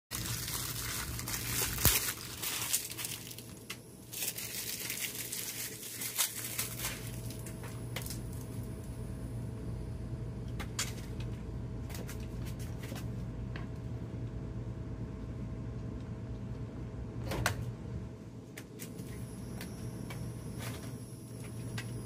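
A steady low hum with scattered sharp clicks and light knocks through it, the loudest click about two seconds in and another strong one near the three-quarter mark.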